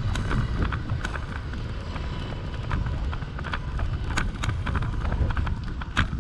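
Wind rumbling on the microphone of a camera riding along on a bicycle, with irregular clicks and rattles from the bike a few times a second and a sharper knock near the end.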